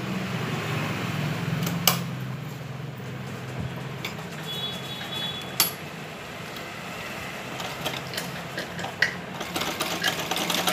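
Cloth being handled and positioned on a sewing machine's needle plate: soft rustling with a few sharp clicks, about three over the stretch, over a steady low hum.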